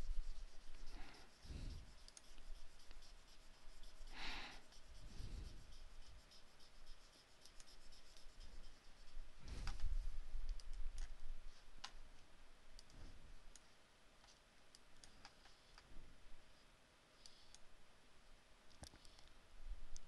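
Computer mouse clicking now and then as Excel's Solver dialog and worksheet tabs are worked, with a few soft low thuds in between.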